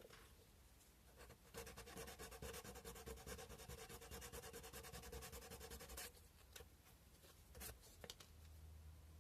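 Sandpaper being rubbed by hand on a cow-bone carving: a faint run of quick back-and-forth strokes lasting about four seconds, then a few light taps.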